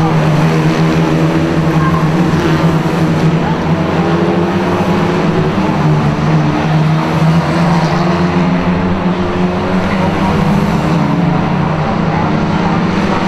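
A pack of Lightning Rod saloon race cars running flat out together on a short oval, their engines making a loud, steady sound.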